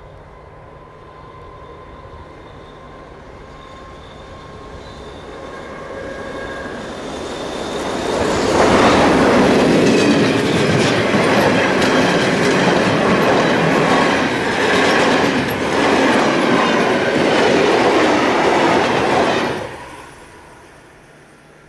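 Freight train of covered wagons approaching and passing close by. Over the first eight seconds it grows louder, with a faint ringing from the rails. Then comes about ten seconds of loud rumble and rapid wheel clatter as the wagons go by, which falls away sharply near the end as the last wagon passes.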